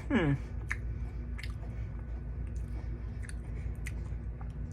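Chewing Pringles potato crisps with the mouth close to the microphone, scattered sharp crunches throughout. A short falling vocal sound comes right at the start.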